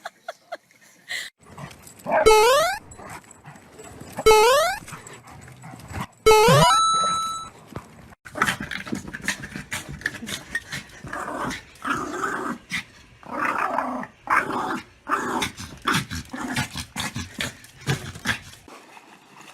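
A dog: three loud calls rising in pitch, about two seconds apart, then about ten seconds of broken, rough dog noises with many clicks that stop shortly before the end.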